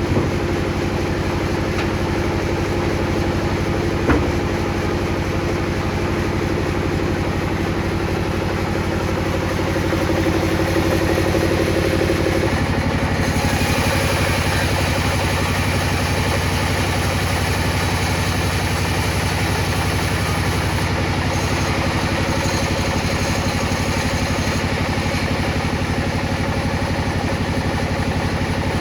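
Table saw running steadily with a constant hum. There is a single sharp click about four seconds in. About twelve seconds in the tone changes and a brighter hiss comes in.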